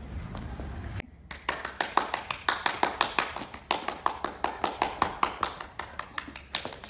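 A rapid, fairly even series of sharp clicks, about six or seven a second, starting about a second in after a short stretch of low background noise.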